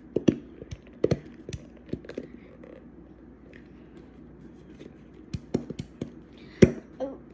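Slime mixture of glue and activator being stirred in a container with a utensil: irregular clicks, taps and scrapes of the utensil against the container, with one louder knock near the end.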